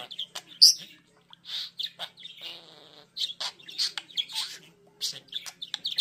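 Budgerigar warbling: a rapid, busy string of short chirps, clicks and squeaks, with a sharp, loud chirp just over half a second in and a longer raspy note about two and a half seconds in.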